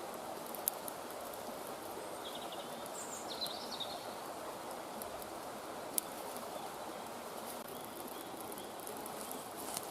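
Steady breezy woodland background noise with a few bird chirps near the middle. Two sharp clicks stand out, about a second in and about six seconds in.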